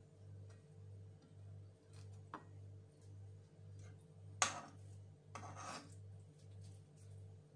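A cabbage leaf being laid and spread on a ceramic plate by hand: a small tap about two seconds in, then two short rubbing, scraping sounds against the plate, the louder one about four and a half seconds in and the other about a second later. A low hum pulsing about twice a second runs underneath.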